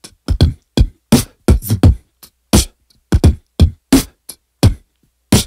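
Outro music made of sparse, punchy electronic drum hits: deep kicks that drop in pitch and short bright hits, spaced unevenly with silence between them.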